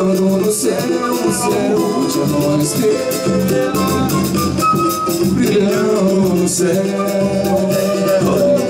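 Live samba band playing instrumentally: a flute carries the melody over strummed cavaquinho, a surdo bass drum and steady percussion.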